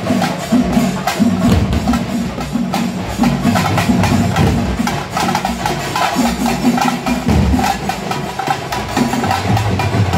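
Tamate frame drums, beaten with sticks by a group, playing a fast, dense festival rhythm.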